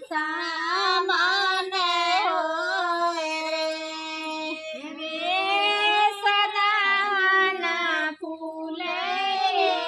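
One high voice singing a slow, drawn-out melody in long held notes, the first held for about four seconds, with short breaks about five and eight seconds in.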